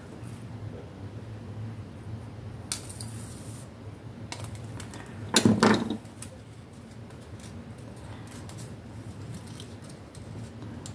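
Small pieces of die-cut paper card being handled and glued by hand: light rustling and small clicks, with a brief hissy rustle about three seconds in and a louder rustle about five and a half seconds in.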